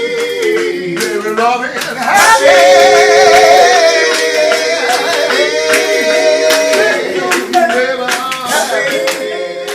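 Background song: a singer holding long notes over a clapping beat.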